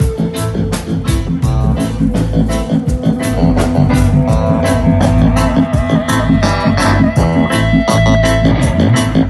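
A band playing an instrumental passage with guitar, bass guitar and drum kit, the drums keeping a steady beat.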